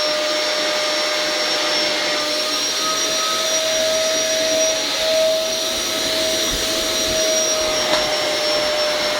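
Household vacuum cleaner running steadily, a constant rushing noise with a high motor whine.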